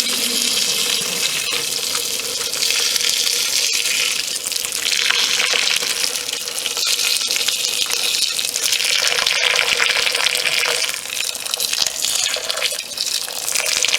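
Boiling water pouring and splashing over an aluminium carburettor in a container, rising and easing in several surges.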